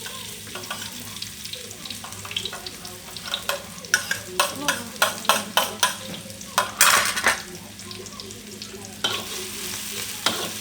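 Chopped onion sizzling in hot oil in a pan, with a spoon knocking and scraping against the pan as it is stirred. The knocks come thick and fast through the middle, with one longer, louder rasp among them.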